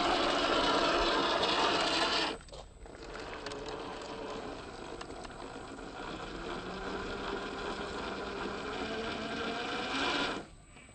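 Electric motor and geartrain of a 1/10 scale RC crawler whining steadily as it drives. It is louder for the first two seconds, breaks off abruptly, then carries on quieter with its pitch shifting slowly, and breaks off again near the end.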